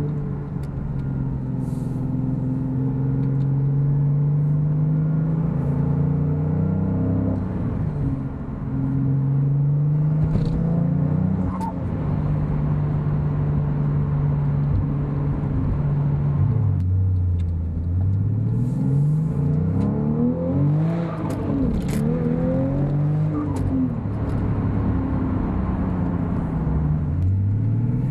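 Porsche 997.2 Turbo's 3.8-litre twin-turbo flat-six with Fabspeed 70 mm Maxflo mufflers and Maxflo air intake, heard from inside the cabin while driving. It cruises steadily, then accelerates, the revs rising and dropping at each gear change, with several quick rev rises one after another about two-thirds of the way through.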